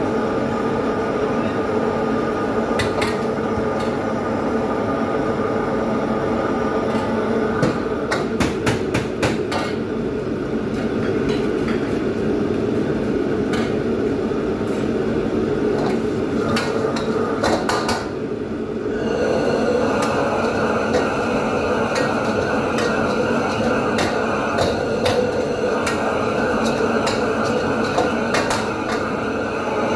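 Gas wok burners and the range hood's extractor running with a steady rush and hum, while a metal ladle repeatedly clanks and scrapes against a wok. The rush drops briefly a little past halfway, then comes back.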